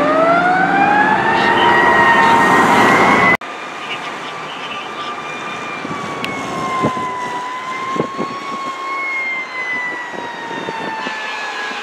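Fire truck siren wailing over passing traffic: it climbs slowly in pitch over the first couple of seconds. After a sudden cut about a third of the way in, it carries on as a steadier wail that slowly dips and rises.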